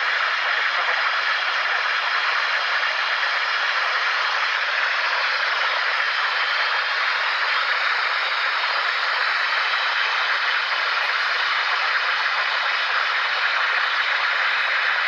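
Spirit box white-noise static played back from a handheld recorder: a steady, unbroken hiss. The ghost hunter believes a voice can be heard in the later part of it.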